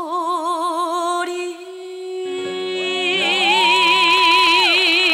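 Female singer holding the song's final long note with steady vibrato, while the band's accompaniment swells in beneath it about two seconds in, ending the ballad.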